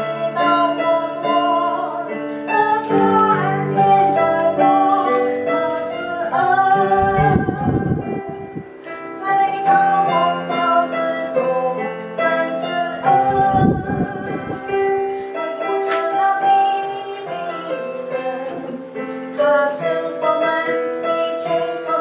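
A song with a woman singing a melody over keyboard accompaniment.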